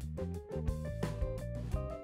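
Background music: a melody of short, changing notes over a steady beat.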